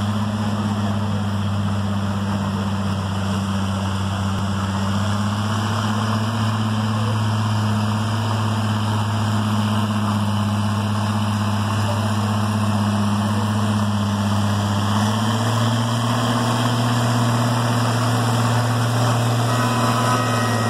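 Oliver 77 Row Crop tractor's six-cylinder engine running steadily under load as it pulls a weight-transfer sled. The engine note climbs a little partway through and eases off near the end.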